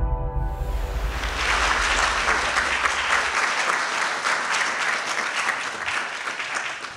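Audience applauding, the clapping rising about half a second in and dying away near the end.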